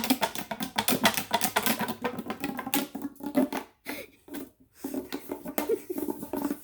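Small plastic fidget toys handled and set down, giving a fast, irregular run of clicks and taps, with a few short pauses near the middle.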